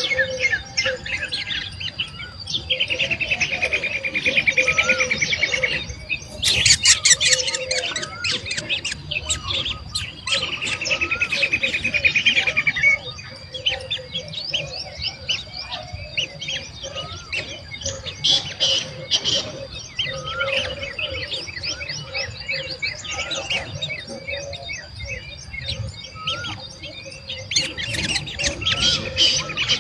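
Birds chirping and calling, with two long, fast trills that fall slightly in pitch, over a steady faint high tone.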